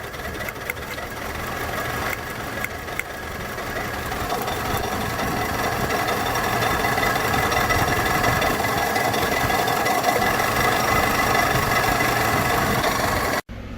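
1996 Toyota RAV4 four-cylinder engine idling with a misfire on cylinder four (code P0304) although that cylinder has spark, with a few light ticks in the first seconds and the sound slowly growing louder. It cuts off abruptly near the end.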